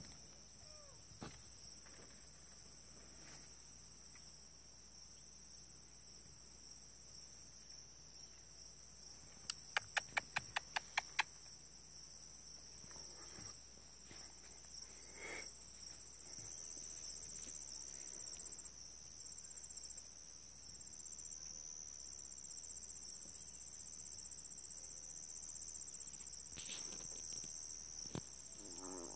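Faint, steady high-pitched drone of insects from the surrounding yard, with a quick run of about eight sharp clicks about ten seconds in.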